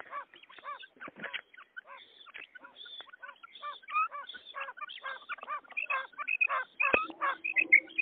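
Quail calling in a rapid series of short, pitched calls, several a second. About seven seconds in, the calls turn higher and more clipped over a low steady hum.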